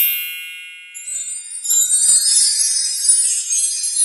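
Bright, high-pitched intro chime, ringing and fading over the first second. Then a shimmering spray of high tinkling sparkle sounds runs on for about three seconds.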